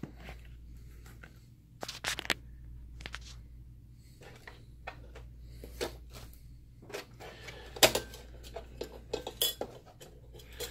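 Scattered clicks, knocks and light metallic clinks from hands working the metal lamp module out of a DLP projector's lamp bay, with one louder knock past the middle.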